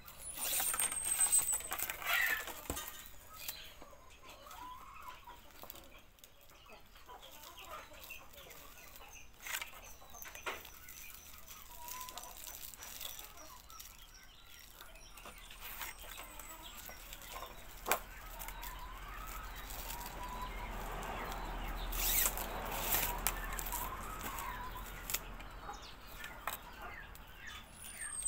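Hens clucking in the background, with rustling and crackling as dried grass-flower broom bristles and a plastic binding strip are handled and wrapped; the rustling is louder for a few seconds about two-thirds of the way through. A few thin, high falling chirps sound near the start and again near the end.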